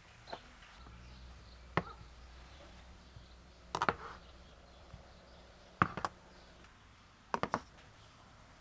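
A few sharp knocks and clicks, some in quick pairs or threes, spread through a few seconds, as of hard objects being handled and set down.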